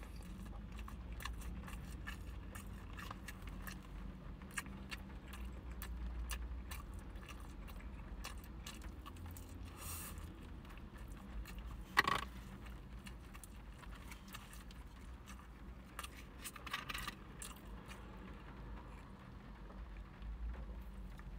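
A person chewing fried chicken, with many small clicks and scrapes of wooden chopsticks against a plastic bento tray, over a low steady hum. A louder short sound comes about halfway through.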